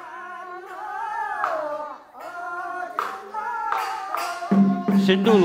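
A man chanting a Nuo opera song in long, wavering held notes, with a few sharp percussion strikes between phrases. A lower held note comes in about four and a half seconds in.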